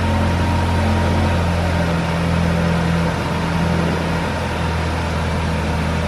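2022 Volkswagen Tiguan 1.5 TSI (150 hp) turbocharged four-cylinder petrol engine idling steadily, heard from behind at the exhaust.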